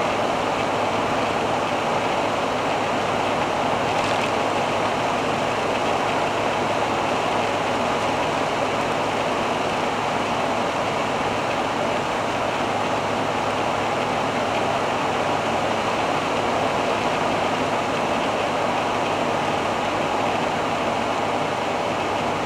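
Steady road, tyre and wind noise with a steady low engine hum from a 1985 Fiat Ducato-based Hobby 600 motorhome cruising at about 94 km/h.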